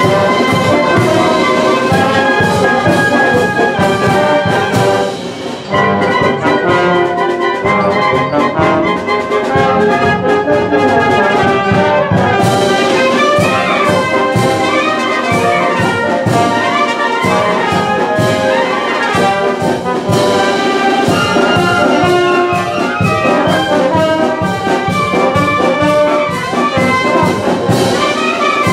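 A wind band (banda de viento) of clarinets, trumpets and trombones playing a piece together under a conductor, with a brief dip in volume about five seconds in.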